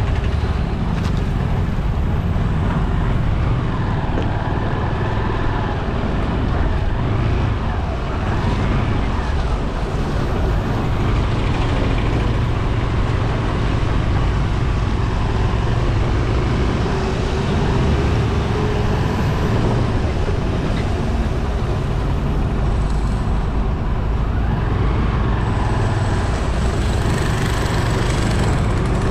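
Motorbike ride with steady road noise: the engine running under a heavy low rumble, with traffic sounds mixed in.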